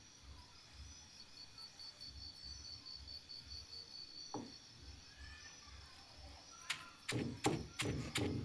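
Pestle pounding grated coconut and spices in a stone mortar, a quick run of regular thuds about three a second that starts near the end. Before that only a faint, evenly pulsing insect chirr is heard.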